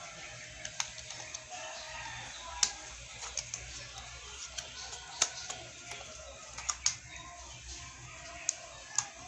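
Scattered sharp clicks, about a dozen at irregular intervals, over a faint steady background hiss and hum.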